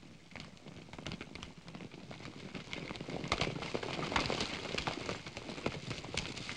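Hoofbeats of a group of horses galloping on dirt, a dense clatter that grows louder over the first three seconds as the riders close in and pass.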